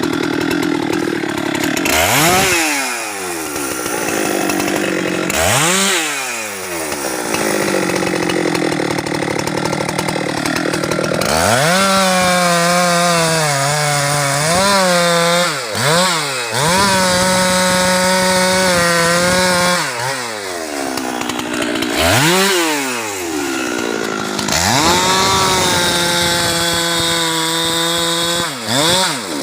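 Husqvarna 390XP two-stroke chainsaw being throttled up and let back to idle again and again, with longer stretches held at full revs around the middle and near the end, its pitch sagging briefly at times as the chain bites into teak wood.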